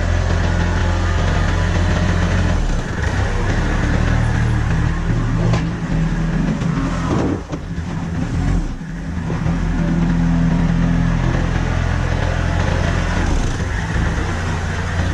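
Kubota L35 backhoe's diesel engine running under varying load, its note shifting a few times and dipping briefly about halfway through.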